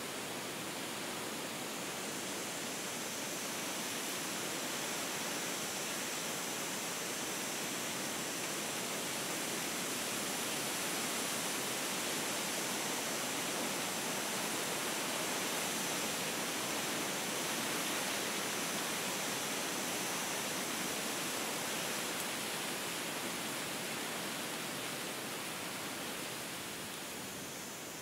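Steady wind, a dense even rush that swells slightly toward the middle and eases off near the end, with a faint steady high hiss above it.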